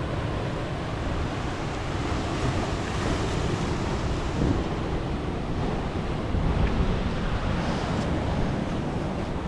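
Ocean surf washing against coastal rocks, a steady rush with small swells, with wind buffeting the microphone.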